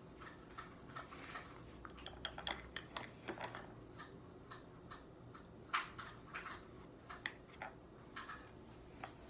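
Light, irregular clicks and taps of a paintbrush and painting supplies being handled on a tabletop, with one sharper tap about six seconds in.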